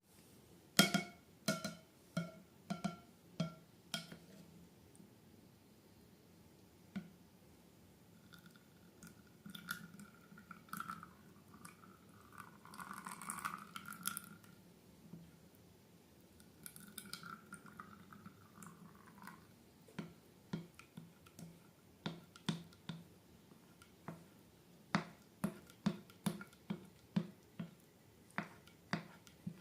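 Slime being squeezed and pressed, a series of sticky clicks and pops, clustered near the start and coming about one or two a second near the end. A squeaky, wavering sound runs through the middle.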